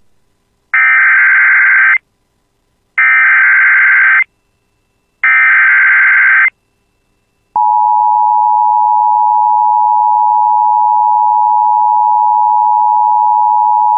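Emergency Alert System SAME header: three bursts of digital data tones, each just over a second long with about a second's gap between them, encoding the alert's event and area. About seven and a half seconds in, the steady two-tone EAS attention signal starts, announcing that an emergency message follows.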